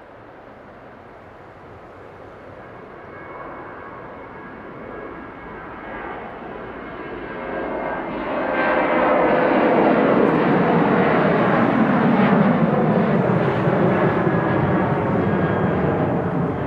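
Boeing 737-800's CFM56-7B turbofan engines at take-off thrust, growing louder as the jet rolls toward and past, loudest from about eight seconds in as it lifts off. Once it has passed, the engine whine drops in pitch under a steady roar.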